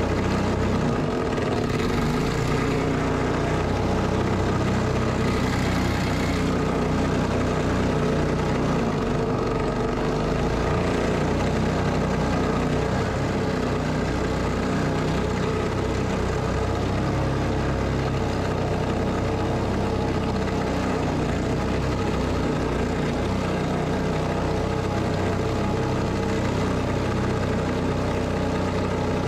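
Honda-clone 212cc single-cylinder four-stroke engine running steadily at an unchanging speed, pushing the small aluminium boat's surface drive against a fast river current, with water rushing and splashing along the hull.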